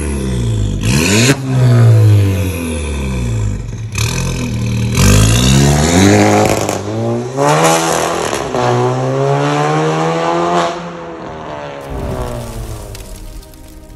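VW Golf 1.4 turbo with a tuned exhaust (downpipe, valved muffler, split dual tailpipes) revved hard several times, each rev rising and falling in pitch, with sharp exhaust pops on several lift-offs. The car then pulls away still on the throttle.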